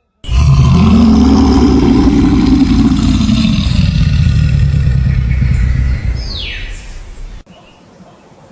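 An animal's long, loud, low rumbling call, which fades out after about six seconds.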